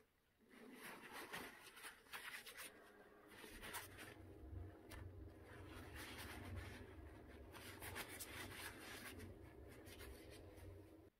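Cloth rag rubbing over a polished metal EGR valve body, a faint, continuous scratchy wiping in many short strokes. A faint low hum sits under it from about a third of the way in.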